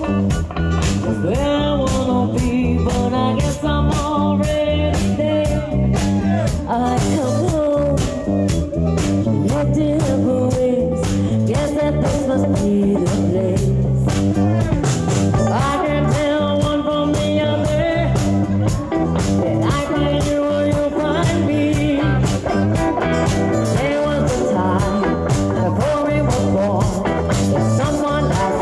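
A live band playing a rock song, with electric guitar, acoustic guitar and drums, and a woman singing lead into a microphone.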